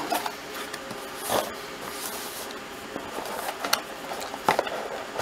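A cardboard product box being opened and the packaging handled: a few soft scrapes and knocks spaced a second or more apart over a low background hiss.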